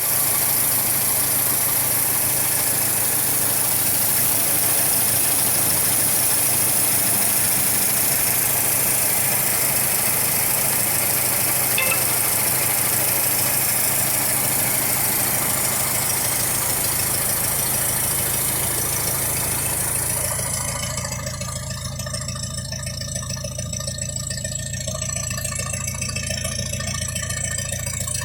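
Ford Model T's four-cylinder engine idling steadily. A loud hiss lies over it and drops away about 20 seconds in.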